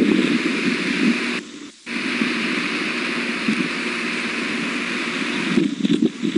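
Steady, rushing wind noise on an outdoor nest-cam microphone, dropping out briefly about one and a half seconds in.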